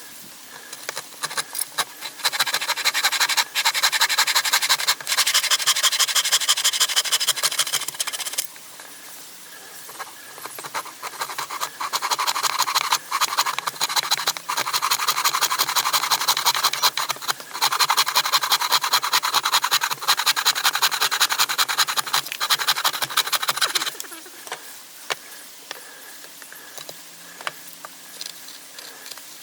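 Scratchy rubbing on wood, typical of work on a small wooden stool, in two long continuous stretches: about six seconds starting two seconds in, then about thirteen seconds after a short pause, stopping a few seconds before the end.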